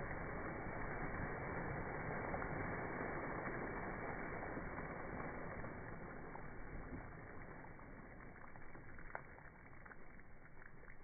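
Pond water churning and splashing from a Belgian Malinois's dive and swim, fading steadily as the dog swims away, with a few faint ticks near the end.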